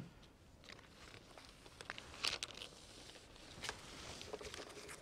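Clear plastic laminating film crinkling and rustling faintly as it is handled and smoothed over a foam wing, with scattered light crackles, the loudest a little after two seconds in.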